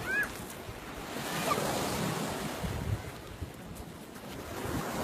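Dead Sea waves washing onto the shore in swells that rise and fall, with wind buffeting the microphone. A short high chirp sounds near the start and again about a second and a half in.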